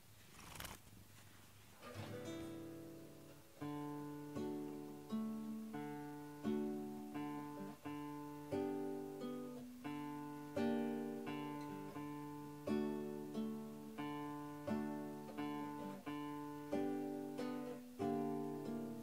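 Instrumental music: an acoustic guitar plucking notes in a steady, even picking pattern, starting about two seconds in.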